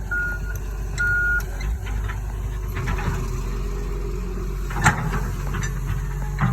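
Cat 315 LC excavator's diesel engine running steadily, with a backup alarm beeping twice in the first second and a half. A single sharp knock about five seconds in.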